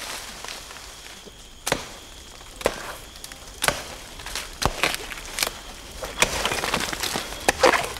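Repeated chopping blows of a blade into a felled palm trunk, about one a second, cutting it open to reach the heart of palm.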